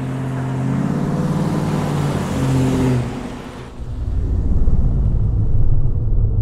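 Ford Mustang's engine running as the car drives up, a steady pitched note that grows louder. About three and a half seconds in, it gives way abruptly to a deep, pulsing low rumble.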